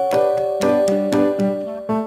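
Background music: a piano-like keyboard plays a melody of notes over held chords.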